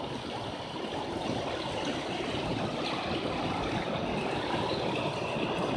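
A stream flowing: a steady rush of running water.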